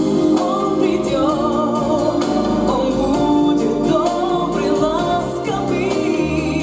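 Children's ensemble singing a song over instrumental accompaniment: sustained sung notes with vibrato over steady backing chords.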